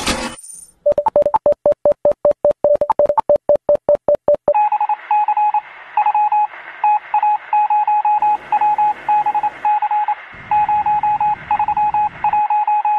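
Electronic telephone-line beeps. First comes a fast run of short pips at one pitch, about seven a second. Then, from about four and a half seconds in, a higher tone is switched on and off in uneven short and long beeps over a faint line hiss.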